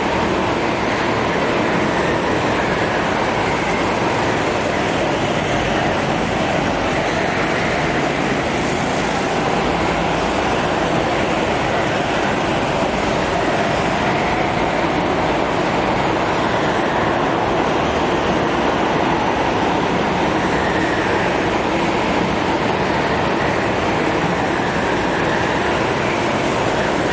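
Several go-kart engines running together around an indoor track, a continuous drone that echoes in the large hall, with the engine note rising and falling as the karts accelerate and brake through the corners.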